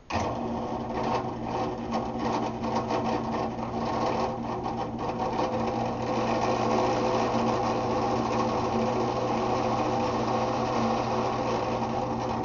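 Drill press switched on and running steadily, its bit cutting a 1/4-inch-deep counterbore into a hardwood vise handle. A steady motor hum, with an uneven rattle of cutting in the first few seconds.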